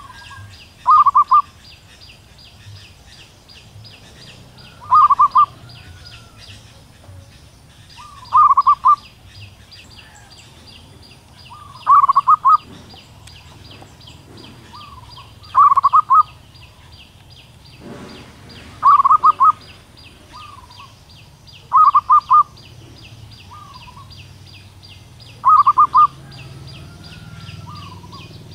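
Zebra dove calling: eight short, loud calls about every three and a half seconds, each a quick run of rapid notes, with softer gliding notes after some of them. It is presented as a female calling for a male. A fast, high chirping goes on steadily in the background.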